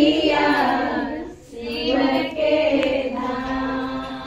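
Women's voices singing a Hindi Shiva bhajan together, with a short break about a second and a half in.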